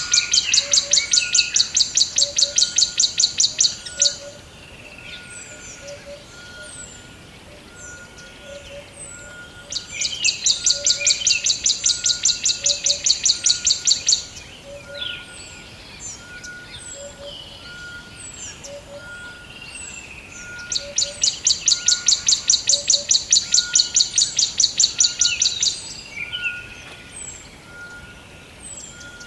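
Forest birds singing: one bird gives a loud, fast, high trill in bouts of about five seconds, three times, while other birds chirp between the bouts. A short, fainter, lower note repeats about once a second underneath.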